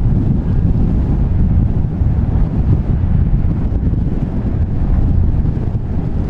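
Wind buffeting the microphone in a steady low rumble, over cars driving slowly past on a gravel road.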